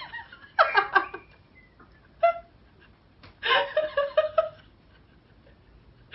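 A woman laughing in a few bursts, the longest a run of quick repeated 'ha-ha' pulses about three and a half seconds in.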